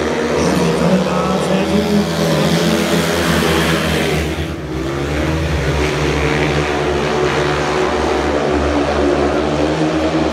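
Speedway bikes' 500 cc single-cylinder methanol engines running flat out as the pack races round the track. The sound dips briefly about halfway through, then rises again.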